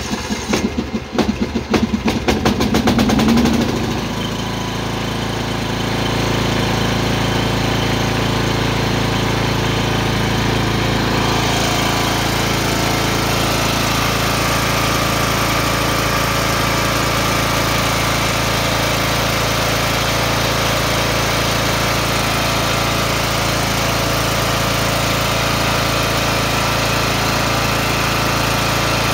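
Riding lawnmower's air-cooled engine being turned over by its electric starter, catching about three to four seconds in and then running steadily. The mower has sat unused for years; this engine fires readily but, the owner says, will only run a couple of minutes before dying as if out of gas.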